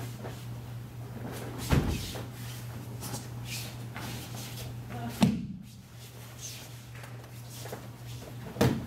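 Three thuds of a person taking breakfalls onto a padded aikido mat, about two seconds in, midway and near the end, the middle one loudest, over a steady low hum.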